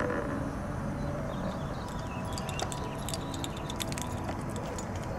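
Metal ID tags on a small dog's collar jingling, a flurry of light clinks from about two seconds in, over steady outdoor background noise.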